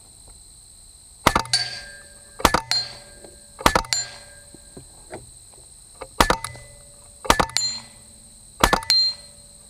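LCS SK-19 PCP air rifle fired one shot at a time: six sharp shots in two groups of three, about a second apart. Each crack is followed a split second later by the clang of the pellet striking a steel gong target, with a brief ring.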